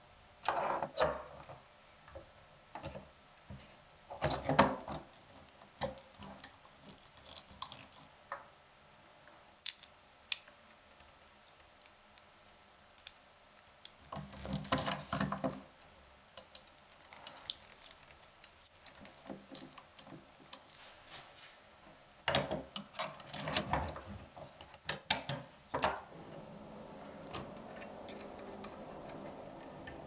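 Small metal parts of a 1930s portable typewriter clicking and clinking against each other as they are handled and fitted together by hand, in irregular clusters of light taps. A faint steady hiss comes in near the end.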